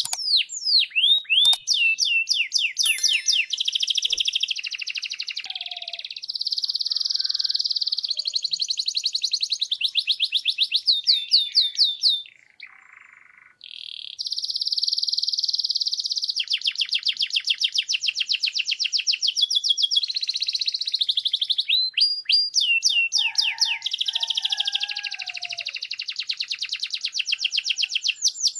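Canary singing a long song of rapid, high trills and repeated chirping notes, one rolling phrase after another, breaking off briefly about halfway through.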